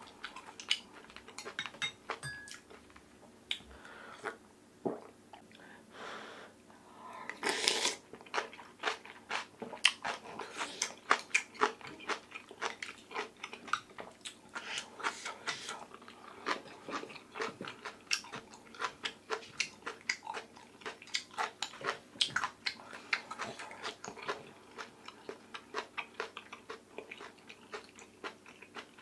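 Close-miked eating: a person chewing and crunching mouthfuls of oyster rice soup with radish, in a steady stream of short, wet crunches and clicks. About eight seconds in there is a longer, louder noisy sound.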